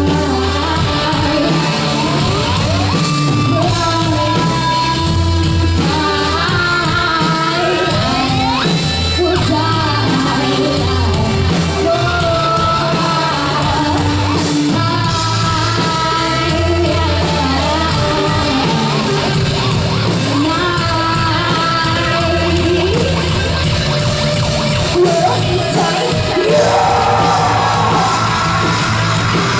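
Hard rock song with a female lead vocal singing over the band, her lines pushed into yells and grunts.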